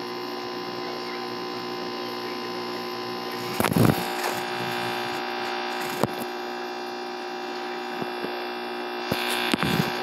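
Steady electric hum of an aquarium pump. A loud knock comes almost four seconds in, a sharp click about six seconds in, and scattered knocks near the end.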